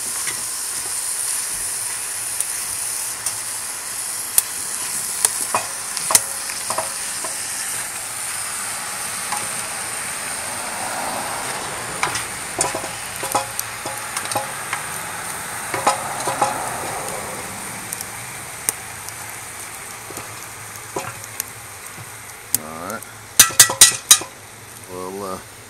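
Ground beef sizzling as it starts frying in a hot pot, with scrapes and clicks as it is stirred and broken up. The sizzle eases off somewhat in the second half, and a quick run of loud sharp knocks comes about 23 seconds in.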